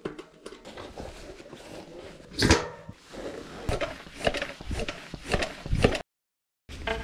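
Irregular knocks and rustling, like something being handled, with the loudest knock a couple of seconds in. The sound cuts to dead silence near the end, and then background music starts.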